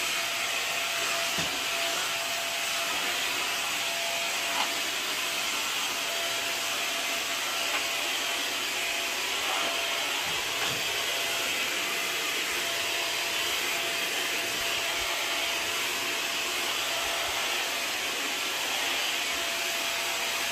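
WAP Wapore Up combined vacuum and steam mop running steadily as it is pushed across a tiled floor: an even, airy motor hiss with a faint steady whine. A couple of light knocks come through.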